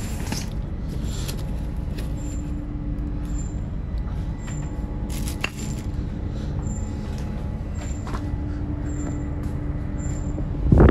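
Steady low rumble of a ship's machinery below deck, with a droning tone that comes and goes and a single click about halfway through.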